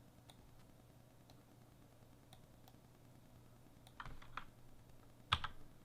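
A few computer keyboard clicks over faint room tone with a low hum. A short cluster of clicks comes about four seconds in, and a single sharper click follows about a second later.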